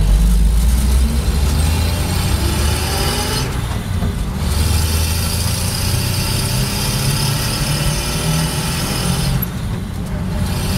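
A 1962 Willys Jeep FC-170 forward-control truck being driven, heard from inside its cab: steady engine drone with road noise. The sound eases off briefly twice, once about a third of the way in and again near the end.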